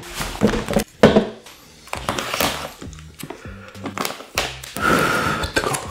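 Background music under close-up handling sounds: a paper packet crinkling and tearing open, with sharp clicks and clatter from tableware.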